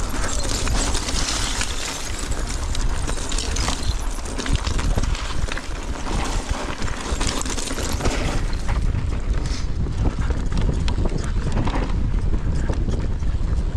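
Mountain bike rolling down a loose gravel and rock trail: tyres crunching over stones and the bike clattering and rattling in quick irregular knocks, over a steady low rumble of wind on the microphone.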